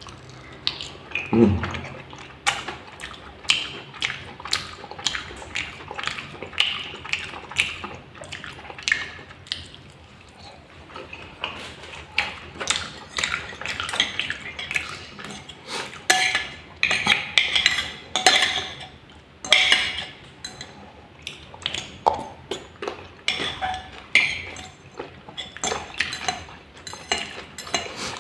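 Cutlery clinking and scraping on a plate in irregular taps while noodles and fried meatballs are eaten.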